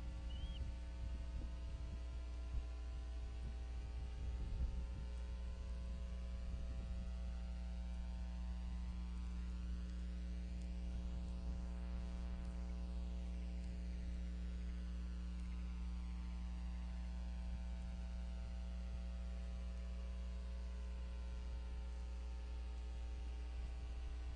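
Steady electrical mains hum in the nest camera's audio feed, a buzzing drone with several steady overtones. A few faint low knocks come in the first few seconds, loudest a little before five seconds in.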